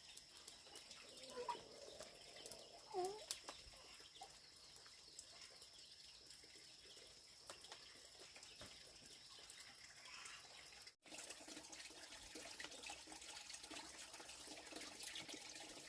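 Near silence, with a few faint short chirping calls in the first few seconds and a faint steady high tone that stops abruptly at a cut about eleven seconds in.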